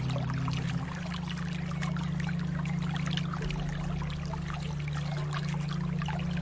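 Water trickling and splashing in a steady flow, full of small drips and splashes. Under it runs a low, sustained musical drone whose notes change a few times.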